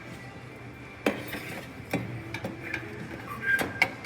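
Sheet-metal burner access cover of a gas water heater being fitted back in place: a few metallic clinks and knocks, the clearest about a second in, near two seconds and near the end.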